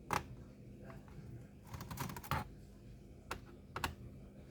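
Screwdriver turning the captive bottom-cover screws of a Dell Latitude 3580 laptop, giving about six short sharp clicks, spaced irregularly, as the bit and screws click against the plastic base.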